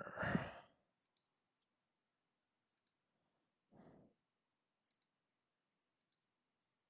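Faint, scattered computer mouse clicks, with one short soft rush of noise about four seconds in.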